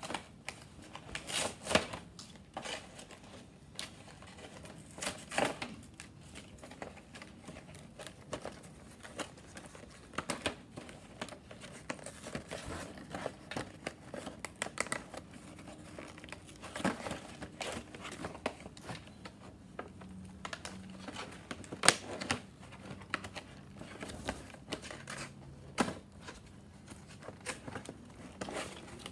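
Cardboard toy box being torn open by hand: irregular ripping and crinkling of thin card and paper, with scattered sharp clicks and knocks as the box is handled, one sharp crack standing out about two-thirds of the way through.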